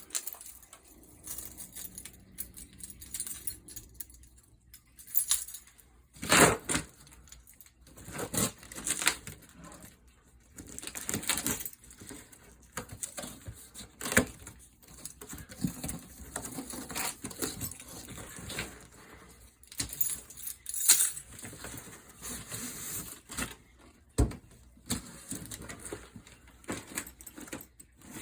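Irregular clinks, knocks and rustles of objects being handled, most likely the impact wrenches and their packaging, with the loudest knocks about six seconds in and again about 21 seconds in.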